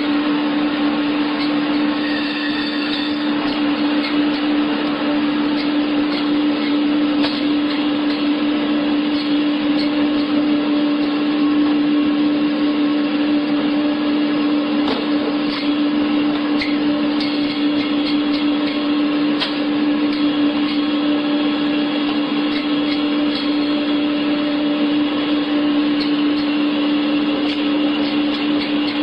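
Meat band saw running with a steady motor hum, with scattered short ticks as chicken pieces are pushed through the blade.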